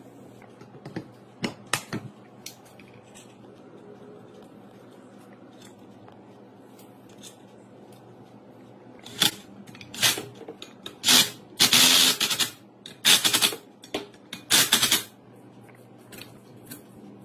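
Light clicks and knocks of metal water-pump parts being fitted together, then a run of short, loud, harsh bursts about nine to fifteen seconds in.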